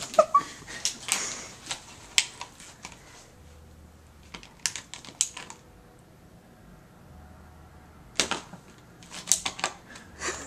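English bulldog mouthing and chomping a toy he is guarding, making clusters of sharp clicks and snaps. There is a quieter stretch in the middle.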